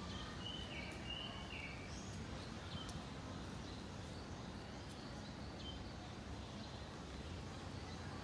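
Steady outdoor background noise with faint bird calls. About half a second in and again about a second in there are two whistled notes, each dropping a step in pitch, and a few short faint chirps follow later.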